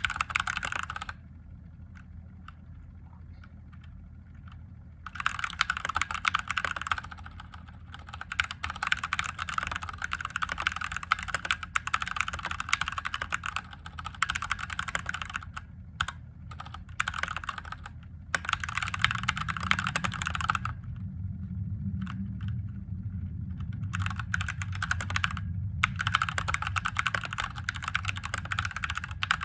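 Typing on a mechanical keyboard with Gateron Yellow linear switches: fast runs of keystrokes broken by pauses, the longest about four seconds near the start and three seconds past the middle. A low steady hum runs underneath.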